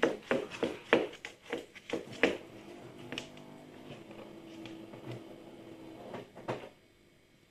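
A tortoise walking on a wooden floor: a run of sharp clicks and knocks about three a second from its steps, thinning to a few scattered knocks later on.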